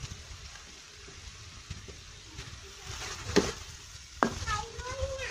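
Metal ladle stirring and scraping in a wok of soup as fresh greens are pushed in, with two sharp clanks of the ladle on the wok about three and a half and four seconds in.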